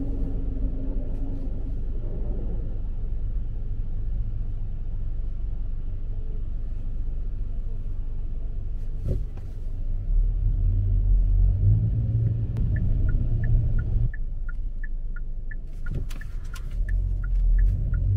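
Low, steady rumble of a car on the move. About two-thirds in, a regular ticking starts at two alternating pitches, about three ticks a second, with a couple of brief knocks.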